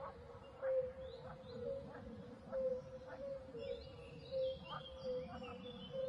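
Birds calling in an outdoor ambience: short repeated calls recurring every second or so, with faster high twittering chirps joining from about the middle.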